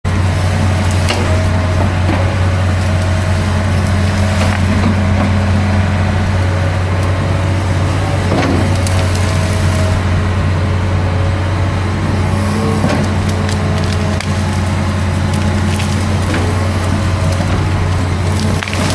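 Excavator engine running steadily under load, with wood cracking and splintering in scattered sharp snaps as trees and branches are pushed over and broken during forest clearing.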